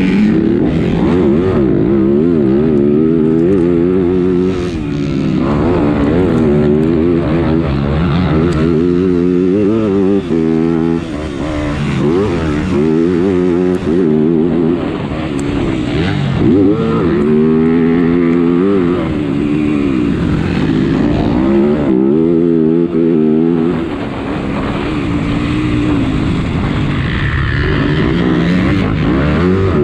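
Motocross bike engine heard from on the bike, revving hard and dropping back again and again as the rider accelerates, shifts and rolls off through corners and straights. The pitch climbs and falls every couple of seconds.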